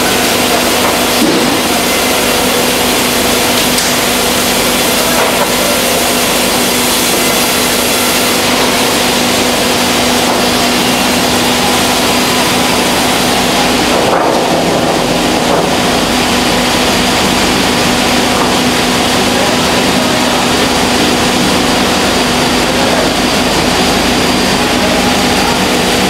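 Sawmill machinery running: a loud, steady mechanical noise with a constant hum, with no distinct cutting strokes standing out.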